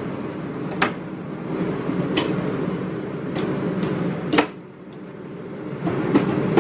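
Camper cabinet doors and drawers being opened and shut, a series of sharp clicks and knocks with the loudest about four and a half seconds in. A steady low hum runs underneath and drops away just after that knock.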